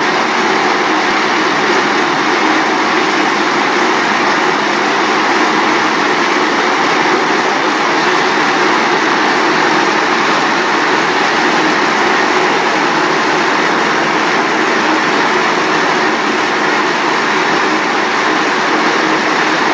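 Corn silage baler machine running steadily, a loud, dense, even mechanical noise with no clear rhythm.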